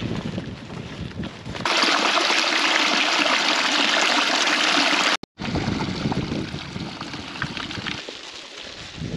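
Rushing stream water, loud and even for about three and a half seconds, cut in and out abruptly between stretches of wind buffeting the microphone.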